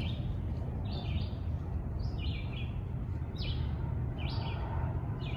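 Bird song: short chirps, each sliding down in pitch, repeated about once a second over a low steady hum.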